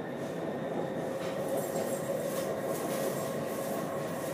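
MRT Blue Line metro train running between stations, heard from inside the car: a steady rumble of wheels on the rails with a faint steady tone over it.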